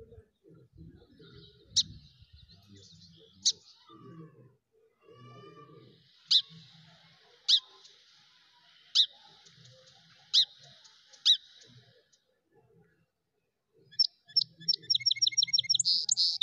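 A bird chirping: single sharp, high chirps every second or two, then a fast run of chirps near the end.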